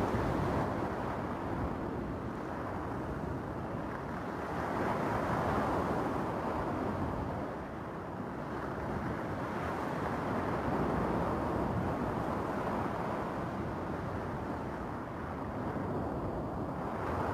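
Surf breaking and washing over a cobble beach, swelling and easing every five or six seconds.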